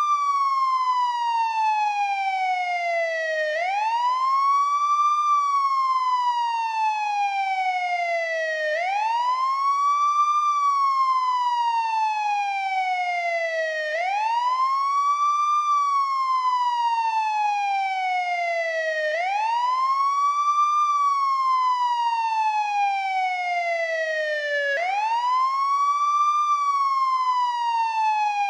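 American police siren on the wail setting: a rich tone rises quickly, then slides slowly back down, repeating about every five seconds.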